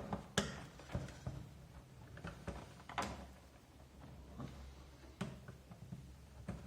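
Scattered clicks and knocks of a plastic computer keyboard being handled and taken apart, with a faint low hum underneath.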